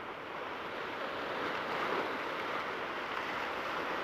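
Ocean surf washing over shoreline rocks: a steady rush of water that swells a little about a second in.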